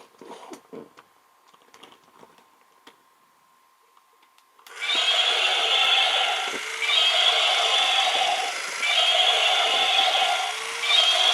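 Battery-powered walking Spinosaurus toy switched on: after a few faint clicks of handling, its sound effects and motor start suddenly near the middle and go on in repeating pulses of about two seconds with short breaks.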